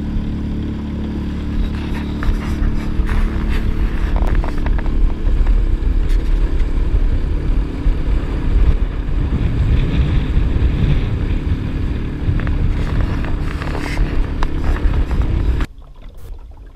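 Small fishing boat's outboard motor running at a steady pace under way, with wind buffeting the microphone and water rushing past the hull. It cuts off suddenly near the end.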